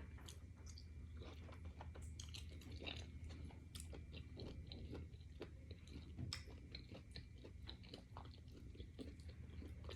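Faint chewing: many small, irregular wet mouth clicks and smacks of a person eating fufu and cow feet in banga soup.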